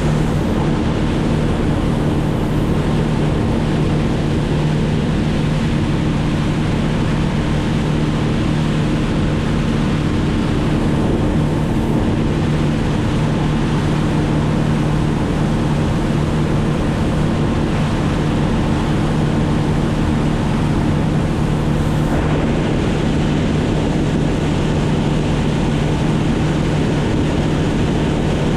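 Motorboat engine running steadily at cruising speed, with the rush of water and wind under its even drone.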